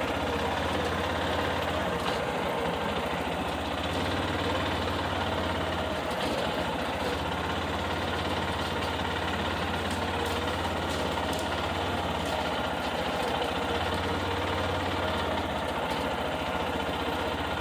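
Vehicle engine running steadily at a low, even speed.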